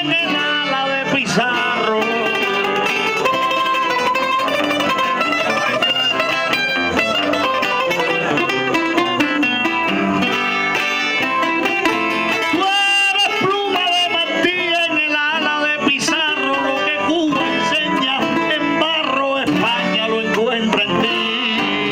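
Cuban punto guajiro accompaniment: plucked strings play the tonada steadily between and under improvised décimas, with a singer's voice over the music at times, including near the end.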